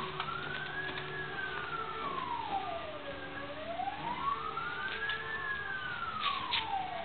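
A siren wailing, its single tone rising and falling slowly in pitch about twice.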